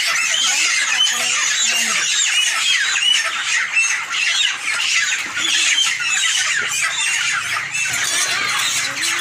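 A large flock of broiler chickens squawking and peeping all at once, many short high calls overlapping without a break, while birds are being grabbed by hand for harvest.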